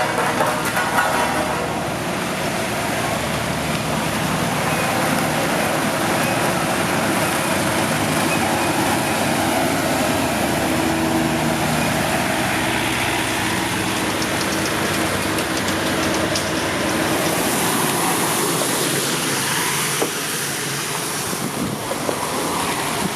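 Heavy road-construction machinery running steadily, a continuous diesel engine drone with mechanical noise that eases slightly near the end.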